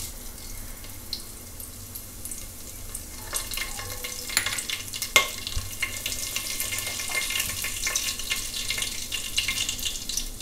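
Cumin seeds frying in hot sunflower oil with whole spices, a light sizzle that turns into a busy crackle of fine pops about three seconds in as the seeds splutter: the tempering stage, the oil hot enough for the next ingredient.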